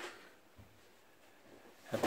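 Quiet room tone with one short click right at the start.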